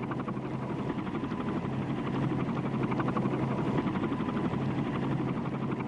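Helicopter in flight: rapid, even rotor-blade chop over a steady engine drone, growing a little louder.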